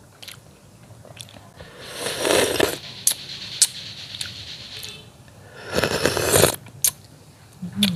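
Wet mouth sounds of eating a curried fish head by hand: two long noisy sucking slurps, about two seconds in and again about six seconds in, with small lip smacks and chewing clicks between them.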